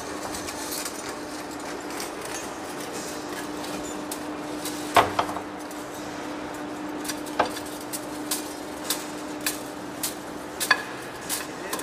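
Large metal lathe turning a steel workpiece, its tool cutting with a steady machine hum. A loud metallic clank comes about five seconds in, and sharp metal clicks follow roughly every half second through the second half.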